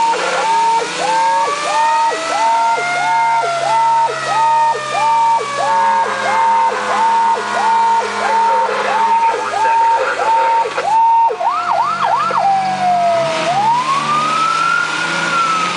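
Fire truck sirens heard from inside the cab. One siren repeats a short rising note about twice a second, while a second siren rises and falls slowly underneath. Near the end the quick note gives way to three fast up-down sweeps, then a slow wail rises again, all over the truck's steady engine drone.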